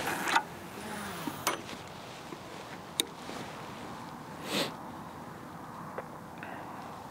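A cast with a 3.60 m Matrix Horizon Pro S-Class feeder rod: a whoosh as the rod is swung and line runs off the reel, loudest right at the start, then a few sharp clicks from the reel and tackle about one and a half, three and six seconds in, with another short rush about four and a half seconds in.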